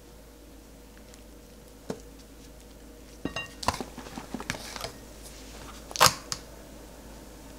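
Thin clear plastic berry clamshell being handled: a scatter of light clicks and crackles from the middle, then one sharp plastic click about six seconds in.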